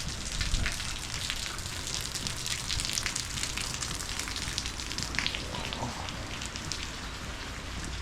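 Steady rain falling, with many individual drop hits heard as sharp ticks over an even hiss.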